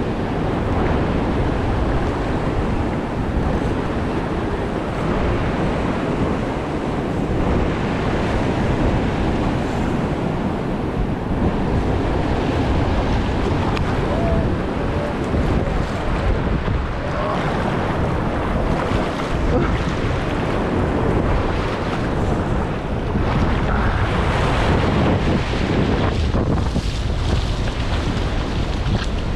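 Ocean surf breaking and washing over shallow water, with wind buffeting the microphone in a steady low rumble.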